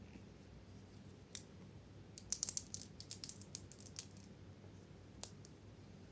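Slime being handled, giving off sharp, crackling clicks: a single click, then a quick run of clicks lasting about two seconds, then one more click near the end.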